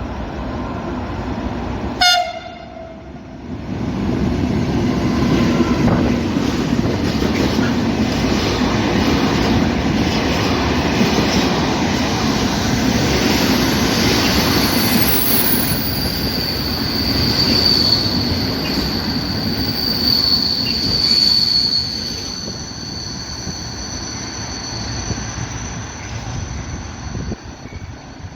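A train passing on the rails, with a brief horn blast about two seconds in, then a loud rumble of wheels. A high, steady squeal of wheels on the rails rises through the second half and changes pitch about two-thirds of the way in.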